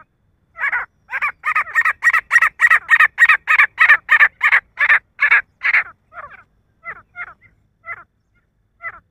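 Male grey francolin calling: a loud series of short repeated notes that quickens to about three a second, then trails off into softer, sparser notes from about six seconds in.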